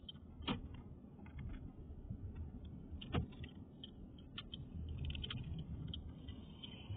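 Faint outdoor street ambience: a low steady rumble with scattered light ticks, and two sharper clicks, one about half a second in and one about three seconds in.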